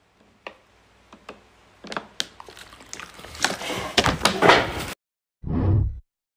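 A large plastic water bottle being handled, crackling and knocking, sparse at first, then denser and louder until it cuts off suddenly. A short TikTok end-card sound follows near the end.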